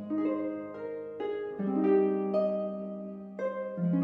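Background music: a gentle melody of plucked, harp-like notes, a new note every half second or so, each ringing and fading.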